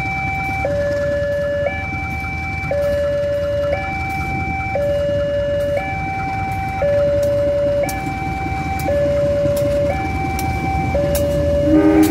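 Railway level-crossing warning alarm sounding its repeating two-tone signal, a lower and a higher tone alternating about once a second. Underneath is the steady low rumble of a CC 203 diesel locomotive and its train passing over the crossing. A short horn blast comes near the end.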